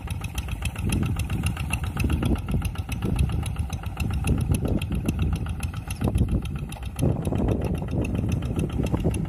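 Quick G1000 two-wheel hand tractor's engine running hard under heavy load, a steady rapid pulsing beat, as it ploughs through deep, flooded paddy mud.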